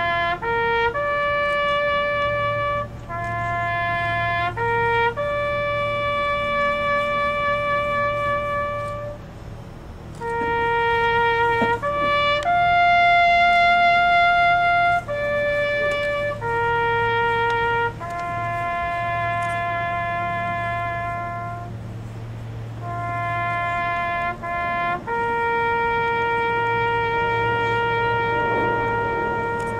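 Solo trumpet playing a slow bugle-call-style melody. Short pickup notes lead into long held notes, with pauses between the phrases.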